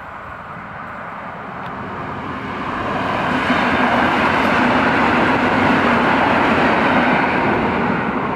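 An EN57 electric multiple unit passing at speed: the noise of its wheels on the rails grows as it approaches, stays loudest for about four seconds while the cars go by, and begins to fade near the end.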